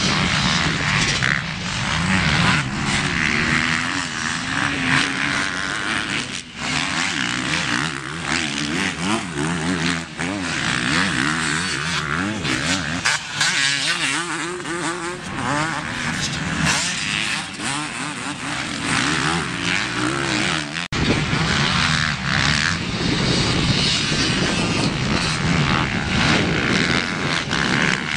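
Several motocross dirt bikes racing on a track, their engines revving up and down through the gears in rising and falling waves.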